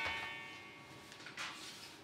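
Kitchen pans and lids played as percussion with a stick: a struck pan rings with several clear tones and fades away, and a second, lighter strike rings about one and a half seconds in.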